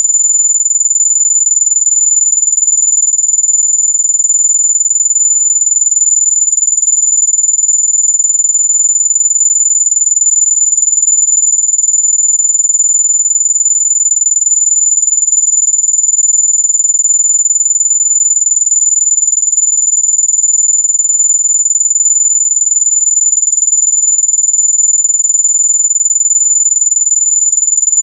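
Mosquito-repellent tone: a single loud, steady, high-pitched whine that holds one pitch without a break.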